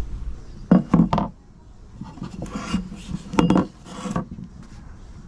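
Hand tools working a wooden axe handle: a quick run of sharp taps with a slight metallic ring about a second in and again about three and a half seconds in, with scraping strokes on the wood between them.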